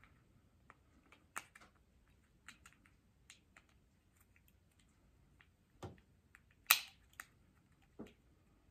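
Scattered small clicks and taps as an N gauge model locomotive is handled and turned over in the fingers, with one sharper click about seven seconds in.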